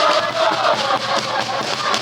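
A crowd of football supporters singing and chanting together, with a steady beat underneath.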